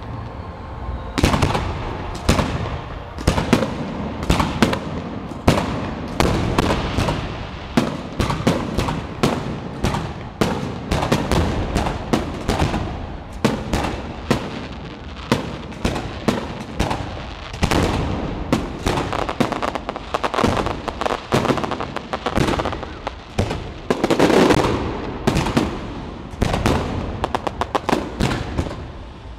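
Fireworks display: aerial shells bursting in a rapid, unbroken barrage of bangs, several a second, with a quick volley of sharp reports near the end.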